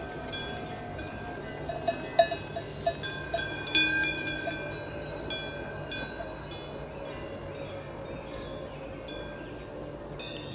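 Metal bells ringing irregularly, with clear tones at several pitches that ring on and fade, and a cluster of quick strikes about two to four seconds in.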